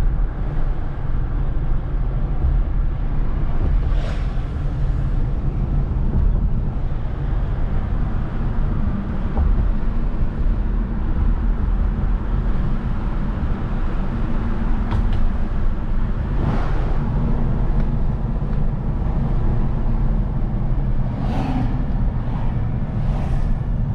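A car driving, heard from inside the cabin: steady engine and road rumble, with a few short swells of noise.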